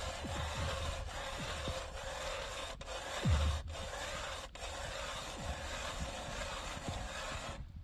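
Hand ice auger being turned through lake ice, its blades scraping and rasping steadily as they cut; the sound stops abruptly near the end.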